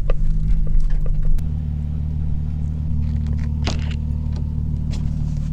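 Nissan 350Z's 3.5-litre V6 with an aftermarket exhaust: driving noise with wind buffeting at first, then about a second and a half in, the engine idling steadily with the car stopped. There is a brief rustle partway through.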